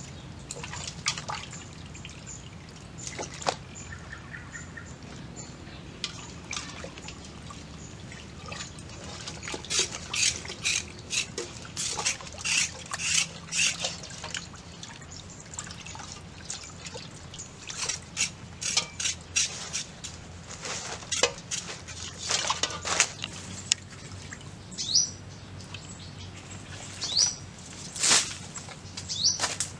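Water splashing, dripping and trickling in irregular bursts as pieces of raw cow leg and tail are washed by hand in a pot and rinsed with water poured from a cup. A few short bird chirps near the end.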